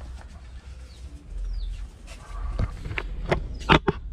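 A few sharp knocks and clunks in the second half, the loudest near the end, as the camera is handled and repositioned. Faint short bird chirps and a low wind rumble underneath.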